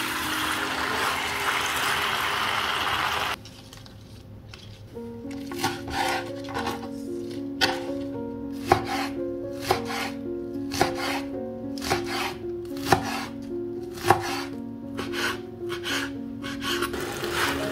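Background music with a series of sharp knocks, one or two a second. Before them, a steady hiss stops suddenly about three seconds in.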